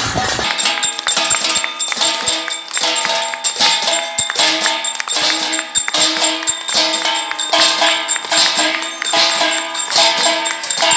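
Rhythmic metallic percussion with jingling at a steady beat, over sustained ringing tones.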